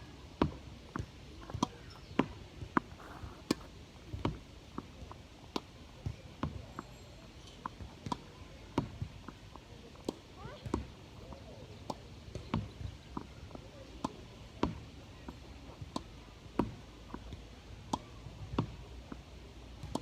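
Tennis ball being hit by a lone player: a sharp pock of ball on racquet and rebound roughly every half second to second, in an irregular steady rally.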